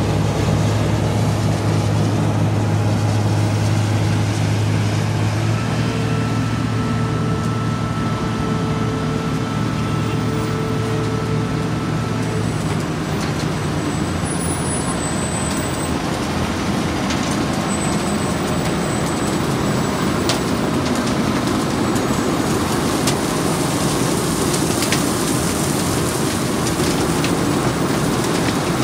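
Heavy diesel engines of road-milling machinery and dump trucks running steadily. In the last few seconds a hissing rattle of broken asphalt millings pouring off a conveyor into a dump truck bed comes in.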